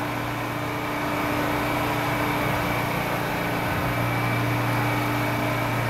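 R179 subway train moving along the platform, a steady electric hum over the rumble of the cars on the rails; the low part of the hum grows stronger about four seconds in.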